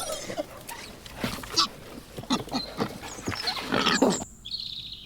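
Animal calls: a rapid run of short, rough cries, some sliding in pitch, that cut off suddenly about four seconds in. A brief high chirping trill follows near the end.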